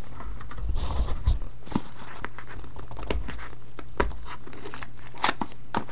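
The wrapping of a sealed football trading-card box being torn open and crinkled by hand, in scattered small crackles and clicks.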